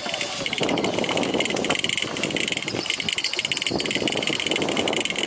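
Boat under way at sea: a steady mix of engine noise and water rushing along the hull, with wind on the microphone.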